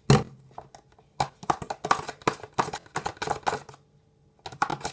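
A sharp knock, then a rapid, irregular run of clicks and scrapes from a spoon stirring shaving-foam slime mixture in a bowl as the contact lens solution activator is worked in, pausing briefly near the end.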